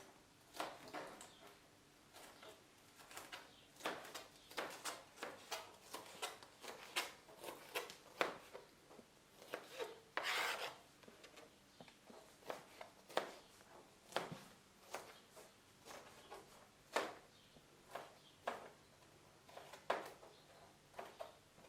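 Knife chopping bell peppers on a chopping board: irregular knocks of the blade, about one or two a second, with a longer scrape across the board about ten seconds in.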